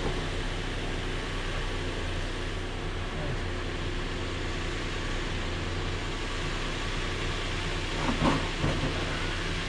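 Nissan Frontier's 4.0-litre V6 idling steadily with the hood open, left running so the automatic transmission fluid can be checked. A brief louder knock-like sound about eight seconds in.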